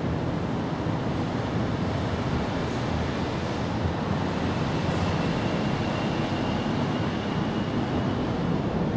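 Steady low outdoor background rumble, with a faint thin high whine through the middle seconds.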